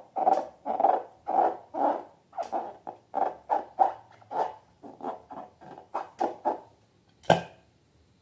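Slime being squished and worked by hand: a quick run of wet squelches, about three or four a second, that stops near the end, followed by one sharp snap.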